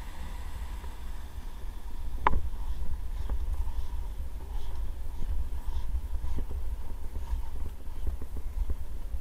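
Inline skates rolling on concrete: a steady low rumble, with a sharp click about two seconds in and then lighter irregular clicks.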